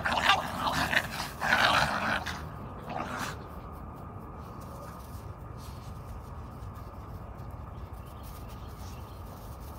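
Dogs in rough play, giving several short, loud yelps and growls over the first three seconds or so, then falling quiet under a low steady background noise.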